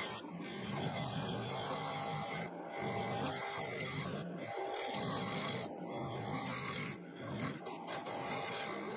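Woodturning lathe running with a turning tool cutting into the base of a segmented wooden bowl, hollowing the recess for a floating-disc insert: a continuous rough cutting noise that swells and eases as the tool moves, with a few short breaks where it lifts off.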